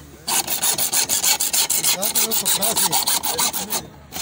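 Hacksaw cutting through a black plastic drainage pipe: quick back-and-forth rasping strokes, several a second, pausing briefly at the start and again just before the end.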